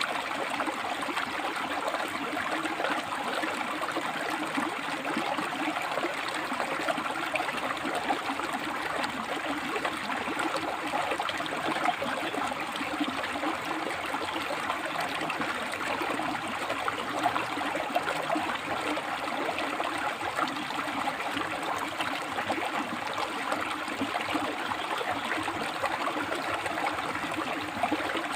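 River water flowing and splashing over and between rocks, a steady rushing babble with no letup.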